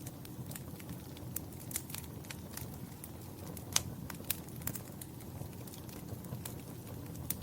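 Wood fire burning in a fireplace: a steady low rush of flames with irregular sharp crackles and pops, one louder pop a little past the middle.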